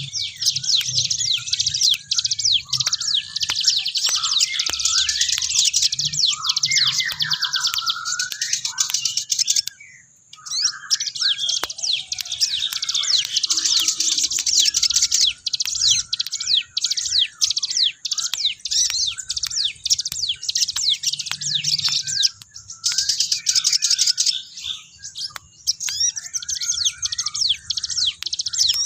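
Sogok ontong (a spiderhunter) singing busily: dense runs of rapid, high-pitched chirps, with lower warbling phrases mixed in and brief pauses a few times.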